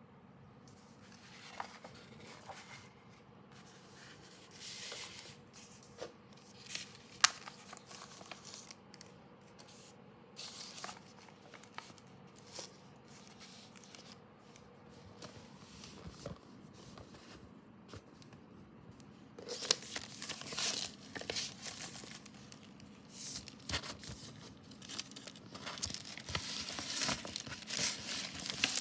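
Album packaging being handled and opened: crinkling and tearing with scattered clicks and taps. It gets denser and louder about twenty seconds in.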